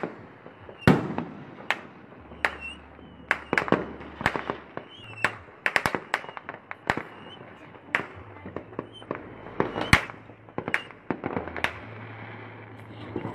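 Firecrackers and fireworks going off in irregular sharp bangs and pops, several a second at times and in quick clusters, with the loudest bangs about a second in and near ten seconds in.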